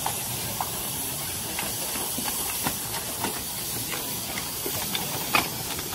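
Steady hiss of steam from a 7¼-inch gauge miniature steam locomotive, with scattered light clicks and a sharper knock about five seconds in.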